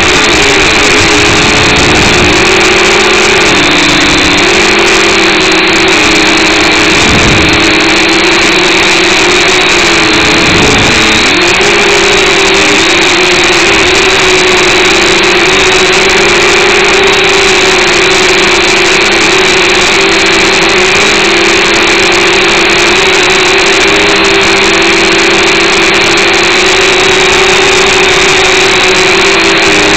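Eachine H8C mini quadcopter's brushed motors and propellers buzzing loudly and steadily, heard up close through the drone's own camera microphone. The pitch wavers with throttle changes and dips briefly twice, about 7 and 11 seconds in.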